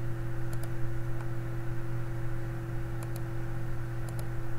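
A few faint computer-mouse clicks, mostly in quick pairs, over a steady low electrical hum.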